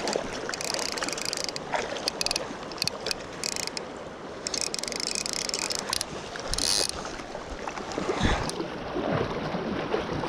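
Fast river current rushing past, with bursts of rapid clicking from a fly reel's drag as a hooked fish pulls line. Heavier splashing and sloshing of water close by comes in near the end.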